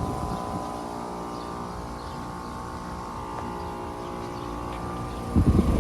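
Central air conditioner condenser unit running: a steady hum made of several steady tones from the compressor and condenser fan. Bursts of low rumble come in near the end.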